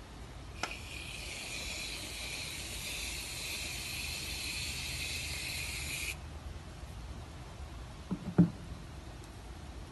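Aerosol can of Barbasol shaving cream spraying foam: one steady hiss of about five seconds that begins with a click of the nozzle and cuts off suddenly. A short thump follows a couple of seconds later.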